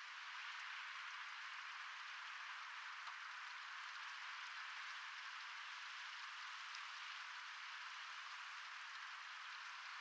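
A steady, even hiss like light rain, with nothing deep in it and no bird calls.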